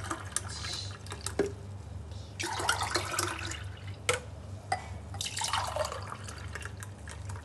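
Thick sattu sharbat poured from a small steel pot into a glass tumbler in three separate pours, splashing into the glass, with a few short knocks between the pours.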